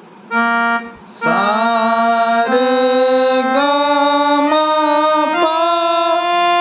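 Casio SA-77 mini keyboard playing a rising scale of held, organ-like notes, one key after another, about one a second: the sargam practised up from a new starting key. A man's voice sings the notes along with it.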